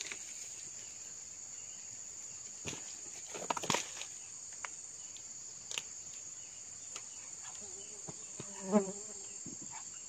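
Steady high-pitched chirring of insects throughout, with a few short rustles and clicks around four seconds in and a brief pitched sound, the loudest moment, about nine seconds in.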